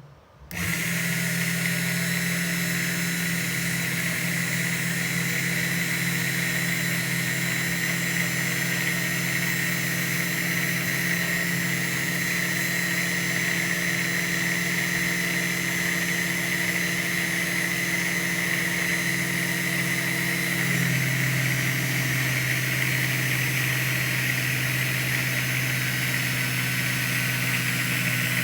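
Small electric motor of a homemade Tamiya mini 4WD tyre lathe running steadily with a hum and a high whine. About twenty seconds in, the hum drops to a lower pitch and runs on.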